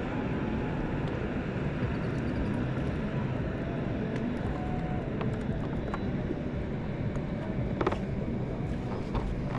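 A boat motor running steadily, a low even hum with no change in speed.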